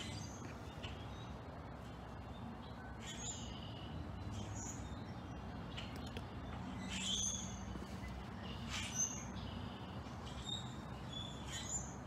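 A flock of blackbirds calling from the treetops: short, high chirps and squeaks scattered irregularly, the sharpest one about nine seconds in, over a steady low background rumble.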